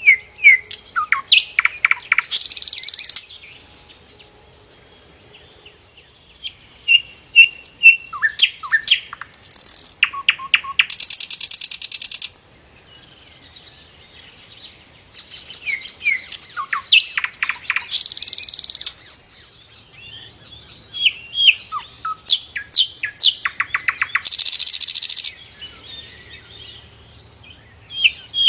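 A sikatan londo (Indonesian flycatcher) singing: loud phrases of rapid down-slurred whistled notes, each ending in a harsh buzzing rattle, repeated in bouts about every seven seconds with quiet gaps between.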